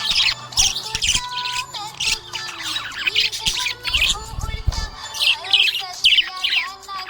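Budgerigars chirping and warbling in a fast, continuous chatter of short high chirps and sliding notes. A brief low rumble comes about four seconds in.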